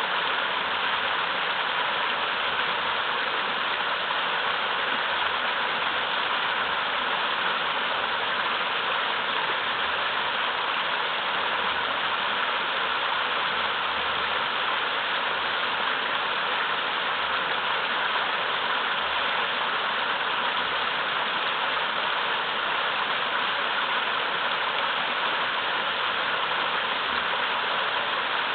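Small waterfall in a mountain river rushing over large boulders: a steady, even splashing that never changes.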